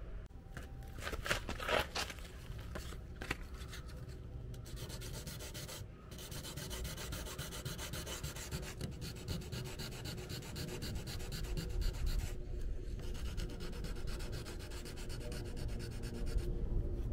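P150 sandpaper rubbed back and forth over the scratched paint of a car bumper in quick, short strokes, with a few brief pauses, sanding the scratch smooth as the first step of a paint repair.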